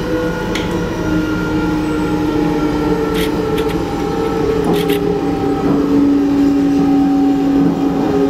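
Diesel railcar running, a steady drone with tones that slowly drift in pitch, with water running from a push-button tap into a stainless steel basin underneath. A few sharp clicks come around the middle.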